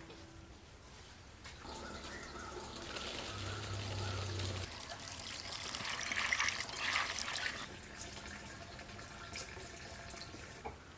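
Water running and splashing, starting about two seconds in and strongest about six to seven and a half seconds in, then dying away.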